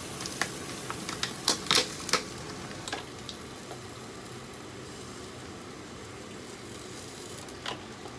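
Baby spinach and kale being tipped from a glass dish into a saucepan: a cluster of sharp taps and clicks of glass on the pot in the first two seconds, and another tap near the end, over steady sizzling in the background.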